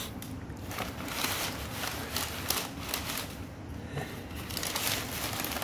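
Crumpled brown packing paper crinkling in irregular bursts as a cat burrows and plays in it.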